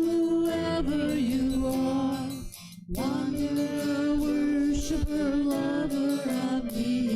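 Voices singing a slow hymn with strummed acoustic guitar, holding long notes, with a brief break between phrases about two and a half seconds in.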